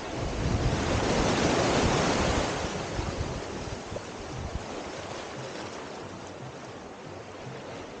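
Small waves washing up the sand at the water's edge. One wash swells to its loudest about two seconds in, then eases off, with wind buffeting the microphone.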